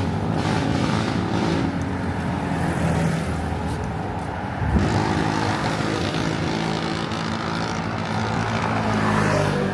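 City street traffic with a motor vehicle's engine running close by, its low hum steady throughout. A short knock sounds about halfway through.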